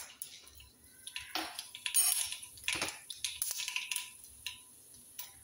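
Mustard seeds spluttering in hot coconut oil in a pan: an irregular run of scattered pops and crackles as the seeds burst at the tempering stage.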